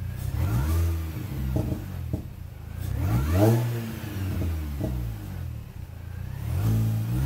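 Mini Cooper S (R53) supercharged 1.6-litre four-cylinder through a Borla cat-back race exhaust, blipped three times. Each rev rises and falls, with sharp pops from the exhaust as the revs drop back.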